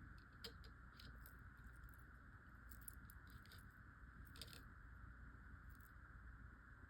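Faint, scattered small clicks and ticks of 20 gauge jewelry wire being wrapped with pliers, over near-silent room tone.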